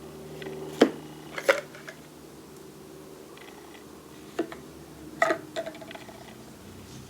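Small steel lathe tooling (boring bar pieces) clinking and knocking together as it is handled, a handful of sharp metallic clicks, some ringing briefly.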